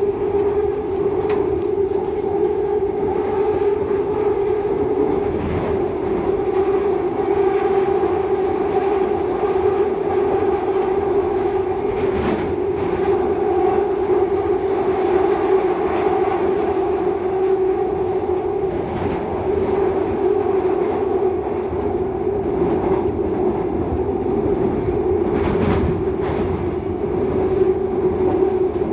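Seoul Subway Line 2 train heard from inside the car, running between stations: a steady rumbling hum with a constant tone. A few sharp clicks from the wheels over the track break through now and then.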